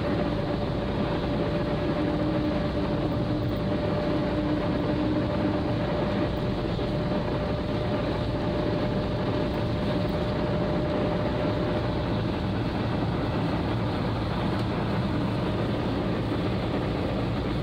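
Cabin noise of a Volkswagen Gol driving on a rain-wet highway: steady tyre hiss and road noise with the engine running under it. A faint steady whine carries through.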